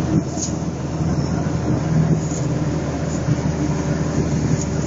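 Engine and road noise of a vehicle driving along a mountain road, heard from inside the cab: a steady, even drone.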